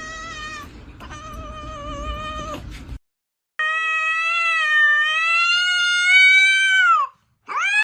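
Domestic cats yowling: a long wavering yowl, then after a cut a louder, long drawn-out meow that drops in pitch at its end, followed by a short rising meow near the end.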